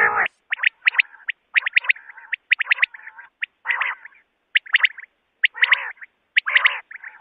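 Common quail calling: quick, sharp notes in clusters of two or three, repeated about once a second, mixed with lower, rougher notes. It is a recorded quail call of the kind played to lure quail for hunting.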